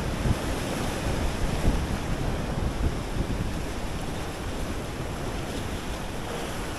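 Sea surf washing on a beach, a steady rushing with wind buffeting the microphone in uneven low gusts.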